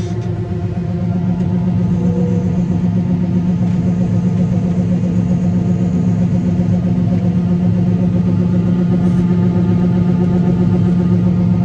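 Combine harvester running while harvesting corn: a steady engine and machinery drone that grows slightly louder about a second in.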